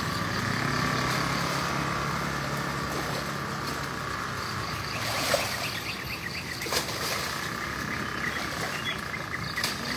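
Steady outdoor background noise with a low hum like a running engine that fades over the first few seconds. A few sharp knocks and short high chirps come in the second half.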